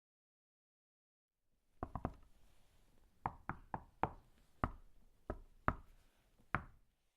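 A series of sharp knocks on a hard surface. There is a quick cluster of three or four about two seconds in, then single knocks at uneven intervals of around half a second.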